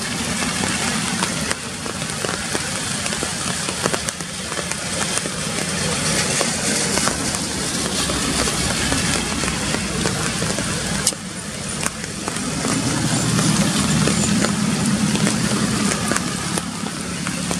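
Steady rain falling on forest leaves, with scattered drips and patters. A low rumble swells in about three-quarters of the way through.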